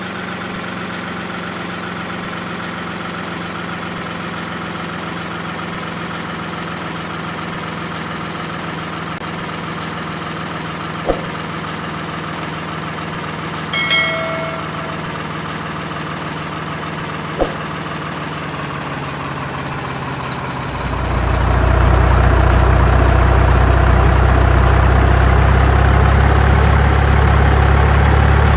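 Steady excavator-style diesel engine sound idling, which turns louder and deeper about two-thirds of the way through as if put under load. A couple of sharp clicks and one short beep sound in the middle.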